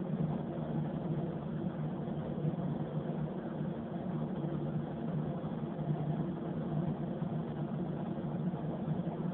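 Paint spray booth's ventilation fans running: a steady, even hum.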